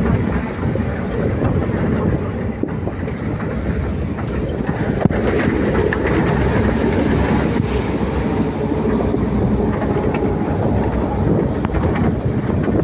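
Steady, loud rumbling noise with wind buffeting the microphone.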